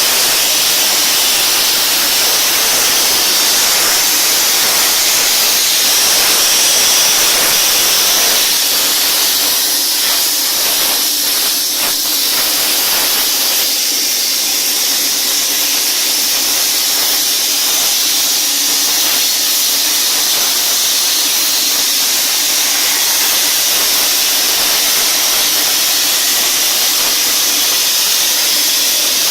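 CNC plasma torch cutting, fed by a Cebora 10051/T plasma unit: a loud, steady hiss of the arc and air jet, with some crackling about a third of the way in.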